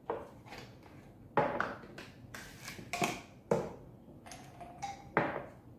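Kitchen things handled on a countertop: a run of sharp knocks and clatters, with a short ringing tone about four seconds in.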